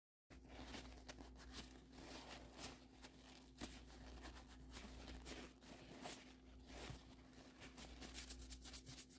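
Faint crinkling and rustling of a paper towel being handled and folded, with many small irregular clicks, over a low steady hum.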